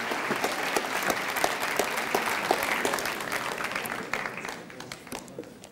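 Audience applauding, the clapping thinning out and dying away over the last second or two.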